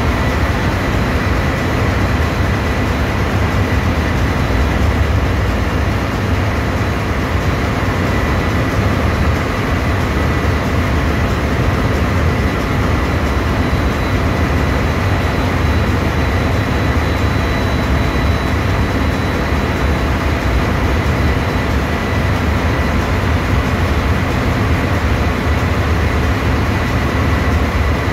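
Ship's engine-room machinery running: a loud, steady drone with a heavy low rumble and a thin constant whine over it, unchanging throughout.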